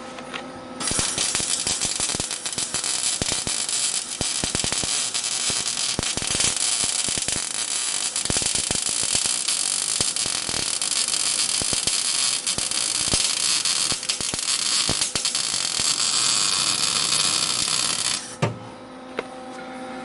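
Wire-feed welder's arc crackling and sizzling steadily as a broken weld in a snowmobile chassis is rewelded. The arc strikes about a second in and stops sharply near the end, with a faint steady hum from the welder before and after.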